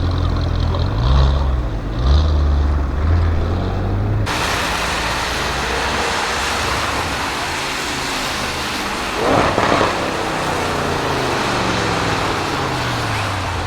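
Audi RS6 Avant C7's twin-turbo V8 through a Milltek exhaust, revved in quick blips, about three. Then a sudden change to a fuller, louder engine sound with a short sharp burst about nine seconds in, after which the engine note falls steadily in pitch.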